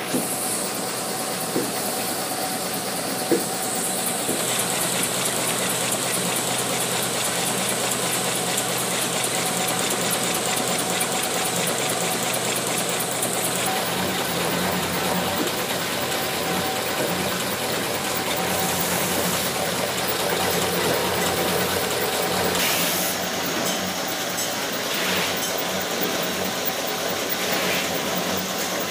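Tissue paper folding machine running steadily, a continuous mechanical drone with a high hiss over it. There are a few sharp clicks in the first few seconds.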